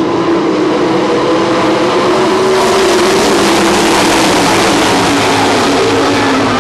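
A field of World of Outlaws 410 sprint cars racing past on a dirt oval, their V8 engines at full throttle in a loud, steady drone, with the engine notes sliding as cars go by.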